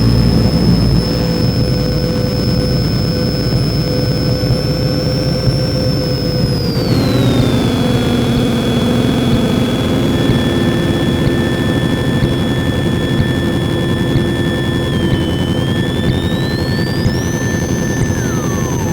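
Soma Laboratories Lyra-8 analog drone synthesizer playing a dense, noisy dark-ambient drone. A thick low bed sits under held high whistling tones. The top tone glides down about seven seconds in, a new tone joins partway through, and the top tone slides back up near the end.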